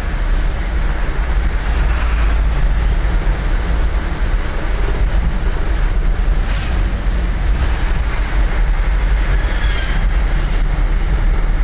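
Dump truck's diesel engine and road noise heard from inside the cab while driving, a steady low rumble.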